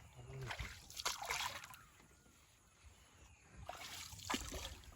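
Water splashing and trickling off a boat paddle as it is dipped and pulled through water, in two clusters of strokes: about a second in and again near the end.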